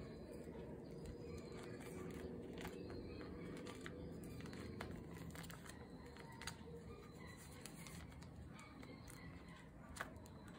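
Faint handling of plastic photocard sleeves and binder pages: soft crinkling with many small plastic clicks, two of them sharper, about six and a half seconds in and again near the end.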